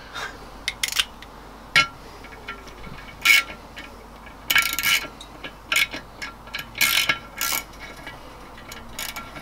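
A quarter-inch stud extractor being worked on a stud in an old VW Beetle aluminium crankcase: a dozen or so irregular, sharp metallic clicks and clinks of steel tool on stud and case.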